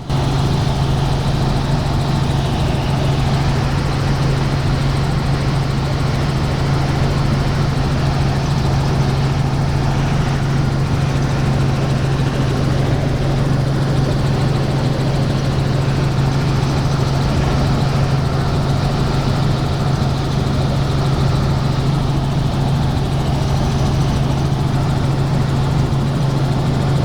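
Helicopter in flight, a loud steady drone of rotor and engine with a strong low hum.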